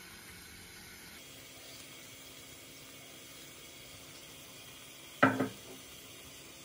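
Faint steady hiss of a pot of tomatoes cooking on the stove. About five seconds in it is broken by a sharp clank and a smaller knock just after.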